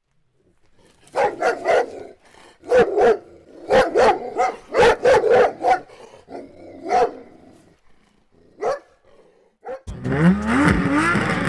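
A dog barking and growling in runs of short barks, then a longer unbroken stretch with a rising pitch near the end.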